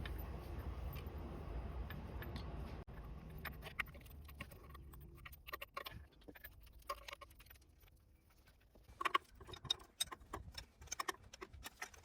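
Irregular light clicks and taps, densest in the second half, over a low rumble that fades away over the first five seconds or so.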